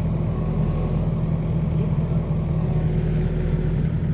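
Skid steer loader engine running steadily at an even speed.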